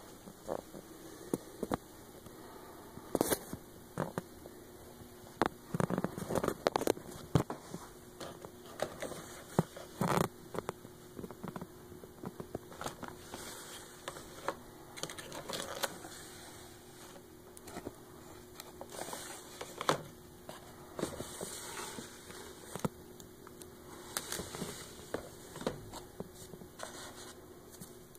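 Irregular clicks, knocks and scrapes of plastic objects being handled, among them a clear plastic storage drawer and a small plastic bottle, over a faint steady hum.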